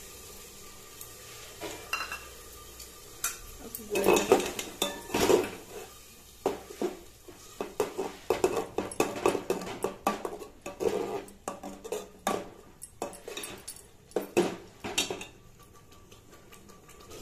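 Metal spoon stirring thick tomato and onion masala in an aluminium handi, clinking and scraping irregularly against the pot's sides from about four seconds in and stopping shortly before the end. A faint sizzle of the masala frying in oil lies underneath.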